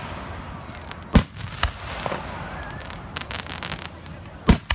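Fireworks going off: two loud bangs, one about a second in and one near the end, with a smaller pop just after the first and a quick run of crackling in between.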